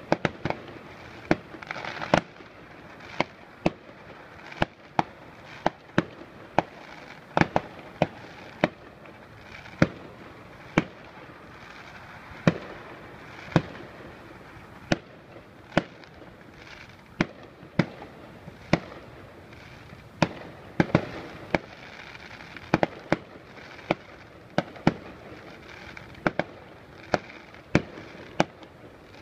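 Fireworks display: a long run of sharp bangs going off irregularly, more than one a second, some in quick pairs, over a continuous background rumble.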